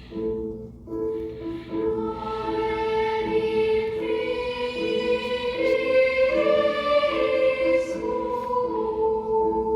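Film score music: held notes with a repeating pulse, joined from about two seconds in by a choir that swells and grows louder toward the middle.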